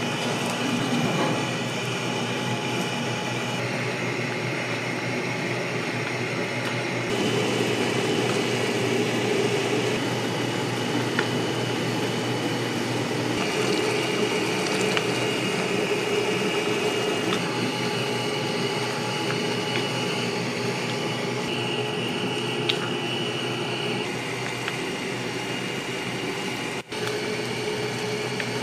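Automatic ramen cooker running with a steady whirring hum, while ramen broth boils in a paper bowl on it. The hum's tone shifts slightly every few seconds.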